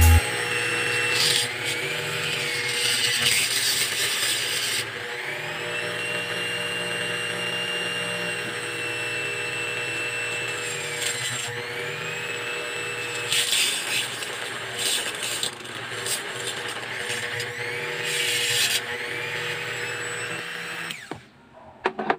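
Flexible-shaft rotary tool with a small bit drilling holes in a carburetor body. The motor runs at steady speed, and its pitch dips each time the bit bites into the metal and recovers as it lets off, with scraping grinding patches during the cuts. It stops shortly before the end.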